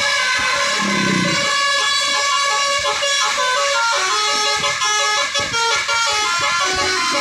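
Basuri multi-tone horn on a Dedy Jaya bus playing a tune, a run of steady notes that step from pitch to pitch every fraction of a second.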